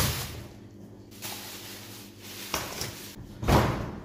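Plastic bag rustling against a stainless steel counter, fading over the first second, then a small knock and, about three and a half seconds in, a heavy thump that fits a thick wooden chopping block being set down on the steel counter.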